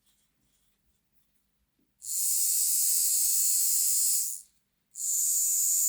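Small DC motor of a Lima OO gauge model locomotive spinning freely on a battery with its gears off, a high hissing whir in two runs, about two seconds and then about a second. It is a bench test after cleaning and oiling, and it runs fine.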